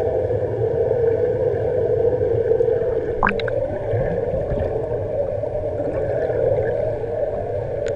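Muffled underwater sound of a swimming pool: a steady hum and rush from the wall jets blowing air bubbles into the water, heard through a waterproof camera housing. A brief rising squeak about three seconds in.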